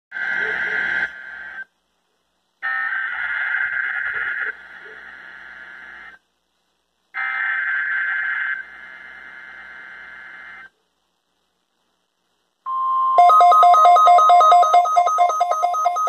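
NOAA Weather Radio SAME alert header played three times through weather radio speakers: three short bursts of harsh digital screech with silent gaps. About two seconds after the last burst the steady warning alarm tone begins, and the Midland receivers' own rapid two-pitch alert beeping joins it almost at once.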